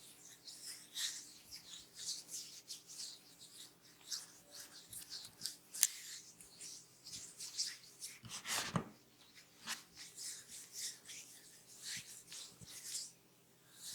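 Massage strokes: hands rubbing over skin and hair in a quick run of short, soft rubs, with one louder stroke about eight and a half seconds in.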